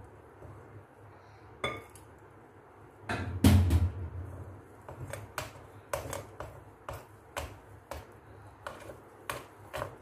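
Hand mixing and beating a thick gram-flour batter in a glass bowl: wet slaps and knocks against the glass, louder just after three seconds in and then about twice a second. A single ringing glass clink comes just under two seconds in.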